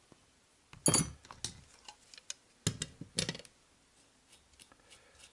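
Hand tools on a workbench: a few sharp metallic clicks and knocks as channel-lock pliers and a multi-tool are worked and set down. The loudest comes about a second in with a brief high ring; three or four lighter taps follow over the next few seconds.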